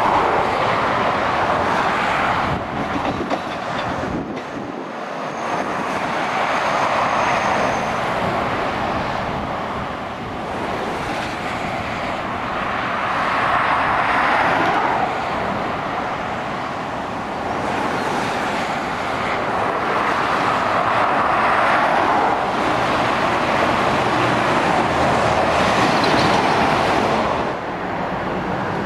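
Motorway traffic, lorries and cars passing below: continuous tyre and engine noise that swells as each heavy vehicle goes by and eases between them.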